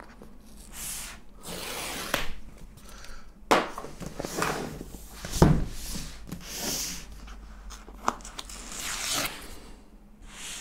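Cardboard product box being handled as its paper pull-tab straps are worked at and torn: a run of tearing, scraping and rustling with a few small clicks, and one dull thump about halfway through.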